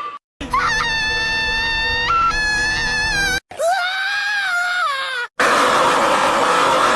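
Three cartoon screams in Beast Boy's voice, spliced one after another with abrupt cuts and brief gaps. The first is a long, high, held scream, the second wavers in pitch, and the third is rougher and hoarser.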